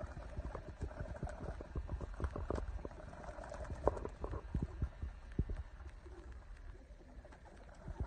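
Young racing pigeons' wings clapping and flapping in short, irregular strokes as birds take off from and land on a tile roof.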